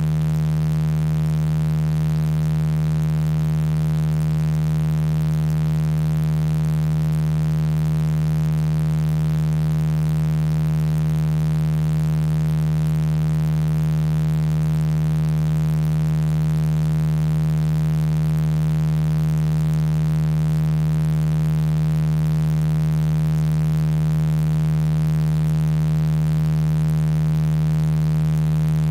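Sound-healing frequency tones generated by software from a voice sample: many sustained electronic tones sounding together as one steady, unchanging drone, the strongest a low hum with fainter higher tones stacked above it.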